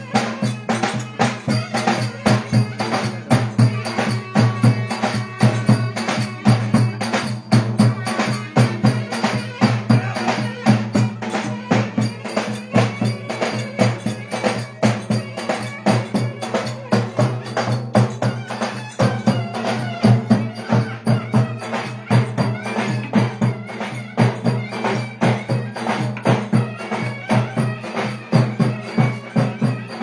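Davul, the large double-headed Turkish drum, beaten in a fast, steady dance rhythm for köçek dancing, with melody and lighter percussion above it.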